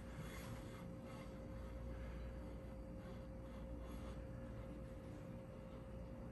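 Quiet room tone with a faint steady hum.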